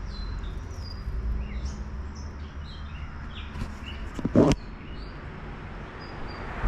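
Small birds chirping, with short high calls scattered throughout, over a low steady outdoor rumble. About four seconds in comes one brief loud thump, the loudest sound.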